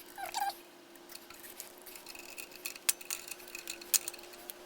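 Small metal parts clicking and clinking as a washer is fitted onto the throttle linkage, with a few sharp clicks; a faint steady hum runs underneath.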